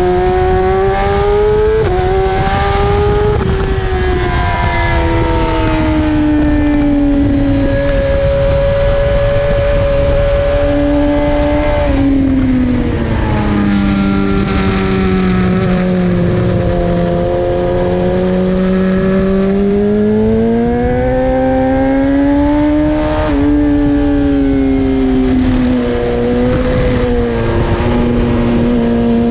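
BMW S1000RR's inline-four engine at speed on a race track, its pitch climbing and falling as the rider accelerates, shifts and brakes, with sudden drops in revs about 2 and 12 seconds in. A steady rush of wind runs underneath.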